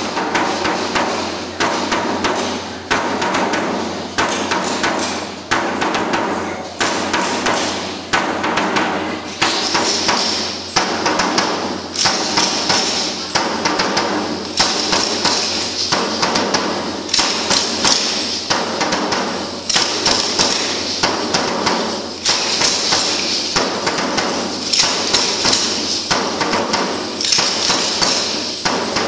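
Matachines dance percussion echoing through a church: a steady drum beat at about two strokes a second, with a higher shaking sound joining in from about ten seconds in.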